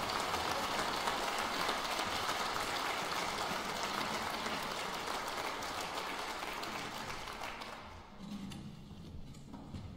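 Audience applauding, the applause fading away about eight seconds in.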